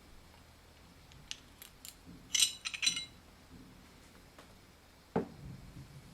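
Metal parts of a field-stripped Glock 21 pistol being handled: a few light clicks, then a cluster of metallic clinks about two and a half seconds in, and a single dull knock near the end.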